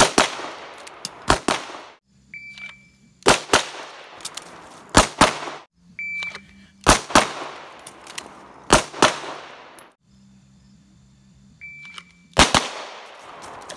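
Handgun shots fired in quick strings of several rounds, with pauses of a second or two between strings. A short high beep from a shot timer starts each string after the first.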